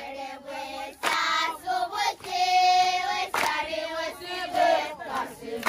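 A group of children singing together, holding long notes in unison.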